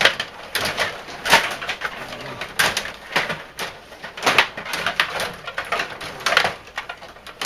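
Hockey sticks and puck clacking during play: irregular sharp knocks and clacks, several a second.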